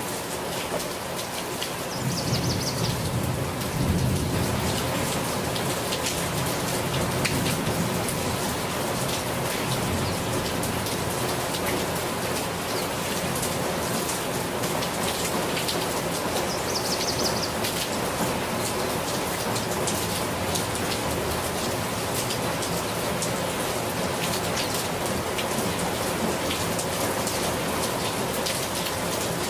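Steady rain falling on foliage, an even hiss of drops. A low rumble, distant thunder, swells about two seconds in and fades by about five seconds.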